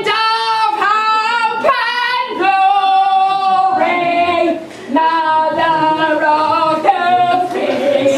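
A woman singing unaccompanied in high, long-held notes, in phrases that stop and start.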